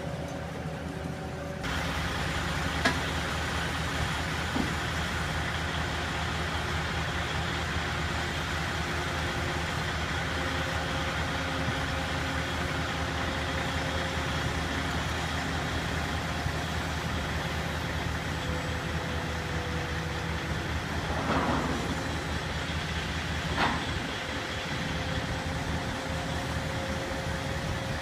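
Cat 299D XHP compact track loader's diesel engine running steadily under load while it carries steel framing on its forks, with a few brief knocks, the two strongest near the end.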